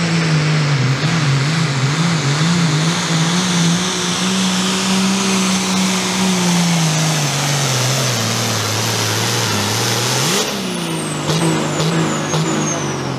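Ford 9000 hot farm pulling tractor's turbocharged 466-cubic-inch diesel at full throttle under load, dragging the weight-transfer sled. Its engine speed wavers in the first few seconds, then bogs down to a lower pitch as the sled stops it. About ten seconds in the throttle comes off and the turbo's high whistle falls away, with a few sharp clicks.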